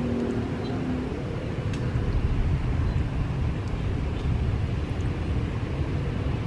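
Strong wind buffeting the microphone as a low, gusting rumble, with a faint steady hum that fades out about a second in.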